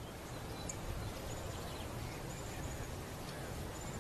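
Steady outdoor background noise with several faint, brief, high-pitched chirps from small birds.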